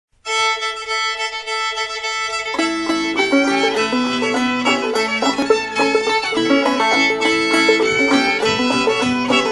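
An old-time string band tune in the key of A: a fiddle holds one long note, then about two and a half seconds in the fiddle tune proper begins with a clawhammer five-string banjo, in G tuning capoed up two, and a guitar playing along.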